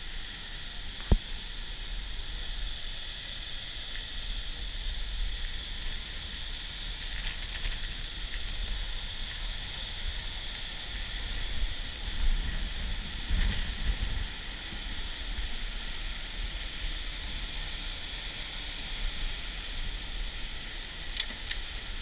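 Steady rushing roar of a large waterfall close by, with a deep rumble of wind on the camera microphone. A single sharp knock about a second in.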